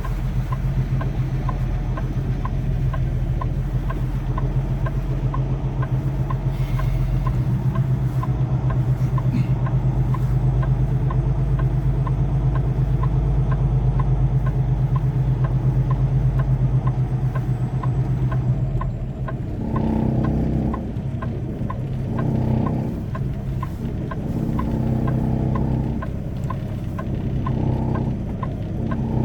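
Semi-truck diesel engine running as the truck moves slowly about the yard, a steady low rumble with a light regular ticking. About two thirds of the way through the engine note drops, and a pitched sound comes and goes every couple of seconds.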